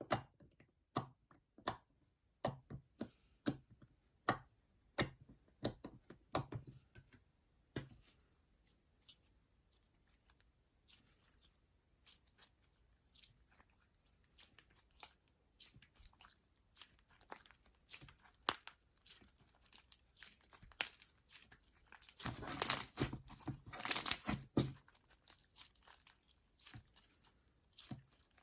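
Slime being squeezed and stretched by hand, making sharp clicks and pops during the first several seconds, then scattered quieter crackles. About 22 seconds in comes a dense run of crackling that lasts about three seconds.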